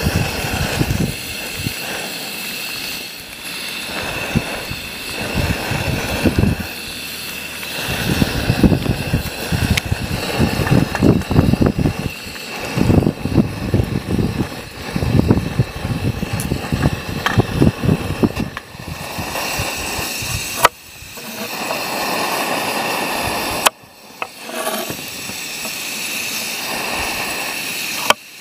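A pan of sliced potatoes and onions bubbling in butter and water over a portable butane gas stove, stirred with a spatula, under a steady hiss with a low, irregular rumble through the middle. Near the end, a knife chop on a wooden board.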